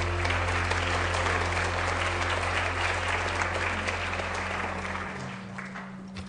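Audience applauding over the last held chord of the accompaniment, which stops about five seconds in; the clapping dies down toward the end.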